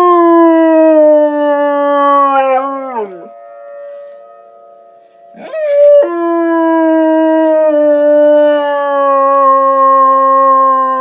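Dog howling: two long, slowly falling howls. The first ends about three seconds in, and the second starts about two seconds later and runs on past the end. A tornado siren sounds as a faint, steady tone in the background.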